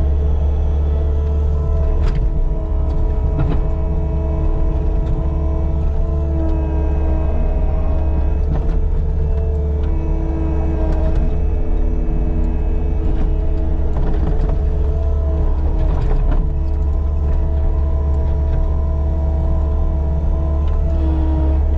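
Caterpillar 299D2 compact track loader running under load: a steady, deep diesel drone with a hydraulic whine over it that shifts in pitch now and then, and a few sharp knocks scattered through.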